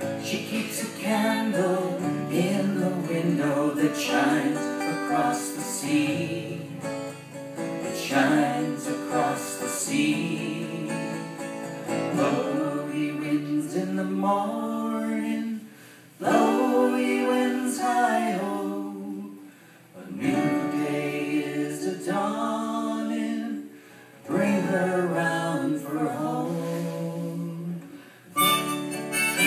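A folk song: acoustic guitar strummed under sung vocals, phrase after phrase with short breaks between lines. Near the end a harmonica comes in.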